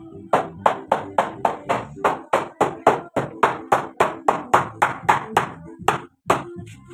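Hammer striking a wooden door frame in quick, even blows, about four a second.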